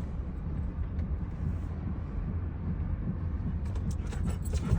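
Steady low rumble of a car moving slowly, with a few light clicks near the end.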